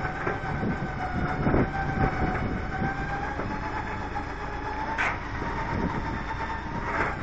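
Tow truck's cable winch whining steadily as it hauls the crashed BMW E30, its pitch creeping slightly upward, then stopping at the end. The wrecked car's damaged wheels and body scrape and knock along the road as it is dragged, with a few louder knocks.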